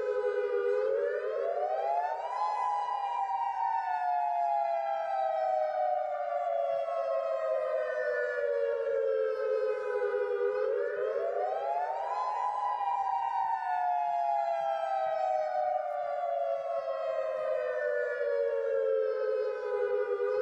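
Civil-defence warning siren sounding a wail. Its pitch climbs over about two seconds, then slides slowly down over about eight seconds. This happens twice, and the pitch starts climbing again at the very end.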